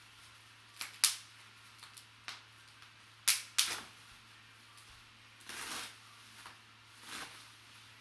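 Packaging being pulled off a framed memorabilia piece: a few sharp crackling snaps, the loudest about a second in and twice more around three seconds in, then a longer rustle near the middle and another shorter one near the end.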